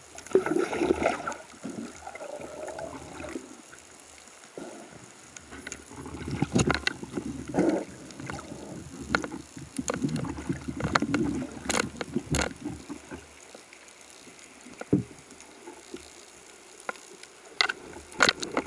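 Water rushing and bubbling around an underwater camera in uneven bursts, with scattered sharp clicks and knocks from spearfishing gear.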